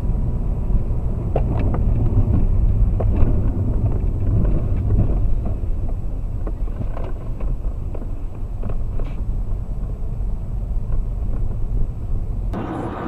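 A car driving over a snowy road, heard from inside: a steady low engine-and-road rumble with scattered light knocks and clicks.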